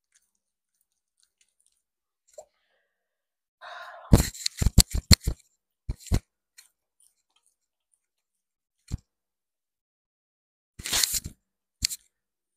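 Hands rubbing, pressing and patting soap lather into the face, close to a clip-on microphone: a quick run of sharp crackling rubs about four seconds in, then a few more scattered taps and rubs.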